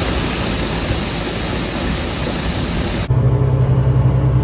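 A loud steady hiss for about three seconds, which cuts off abruptly; an engine then runs steadily at a low pitch.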